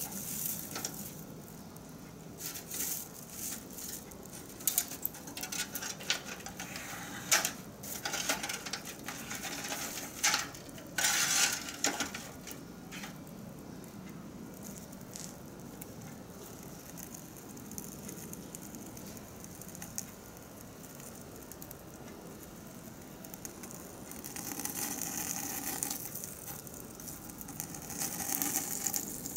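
Sticks and charcoal being poked and shifted inside a steel drum grill, with irregular scraping, knocking and clattering. Near the end there are a few seconds of steadier hissing as the fire is lit.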